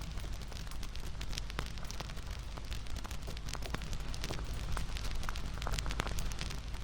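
Wood fire crackling: irregular sharp pops and snaps over a steady low rumble of the burning fire.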